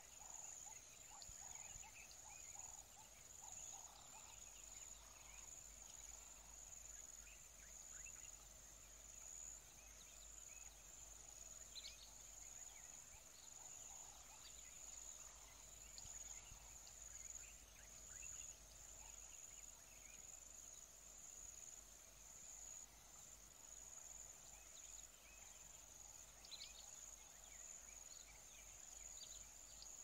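Faint outdoor bush ambience: a steady high-pitched insect drone, like crickets or cicadas, with faint scattered bird calls.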